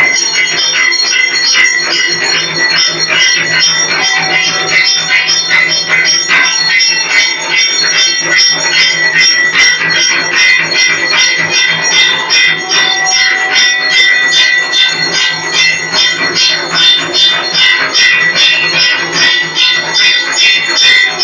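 Arati bells ringing continuously, with fast, even metallic strokes of about five a second over a steady high ring.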